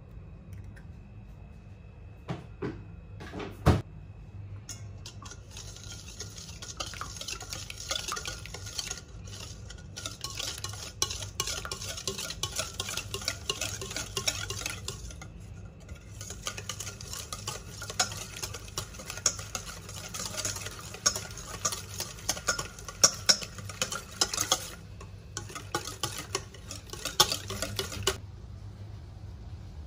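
A utensil stirring and scraping in a mixing bowl: two sharp clinks in the first few seconds, then a long run of quick scraping strokes with a few short breaks, stopping near the end. A low steady hum runs underneath.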